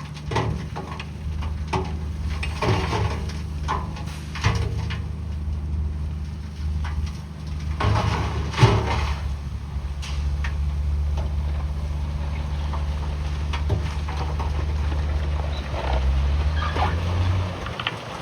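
Bulldozer's diesel engine running steadily, with irregular clanks and scraping of rock and metal over it. The engine note shifts near the end.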